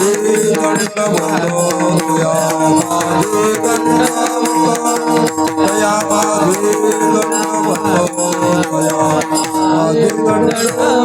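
Devotional bhajan music: tabla and small hand cymbals keeping a steady beat under held drone tones, with singing voices gliding between the sung lines.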